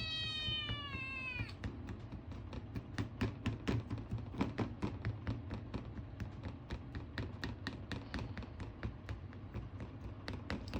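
Ragamuffin kitten meowing for food: one long, drawn-out meow that drops in pitch as it ends about a second and a half in. It is followed by a long run of quick, irregular clicks and taps.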